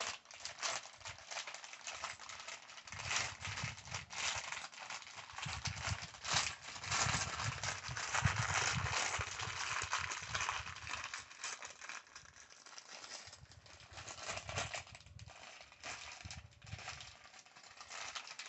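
Clear plastic bag of small building bricks crinkling as it is handled and worked open, with the loose plastic pieces inside clattering together in a dense run of small clicks.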